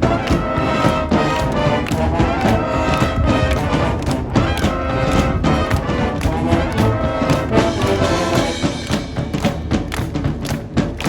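High school marching band playing: brass sustaining chords over a drumline's rapid, regular drum strokes.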